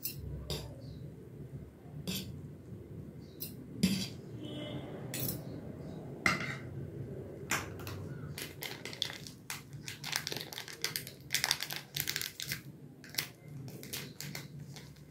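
A metal fork and spoon clinking and scraping against a ceramic plate as instant noodles are tossed, with many sharp clinks. Near the end, a plastic sauce sachet crinkles as it is handled.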